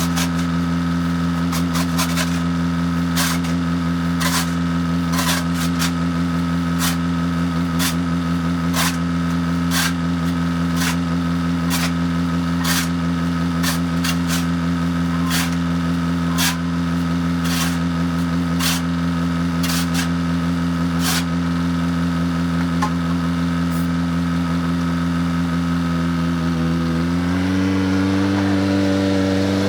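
An engine running steadily, with repeated sharp clicks and knocks over it for the first two-thirds. Near the end the engine speeds up briefly, then settles back.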